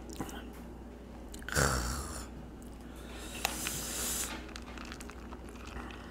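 Close-miked eating sounds: a person chewing a spoonful of coffee dessert with ice cream. There is a short, louder mouth noise about two seconds in, and a longer hissing stretch with a few small clicks around three to four seconds in.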